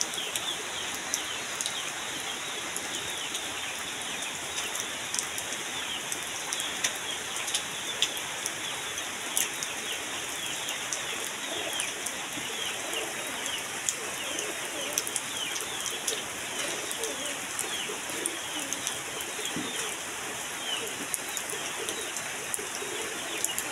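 Steady rain falling on muddy ground and shallow puddles, with many sharp drop splashes scattered through the hiss.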